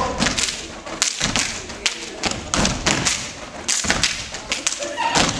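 Step team stomping their feet on the stage floor and clapping in a syncopated, uneven rhythm: a string of sharp thuds and claps, a dozen or so strikes with short gaps between groups.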